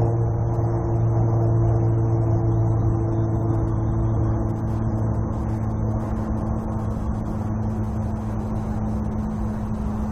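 Faint hum of a distant drone's propellers, a few steady tones, mixed with road-traffic noise. About halfway through, the upper tones fade and a new, slightly higher tone comes in.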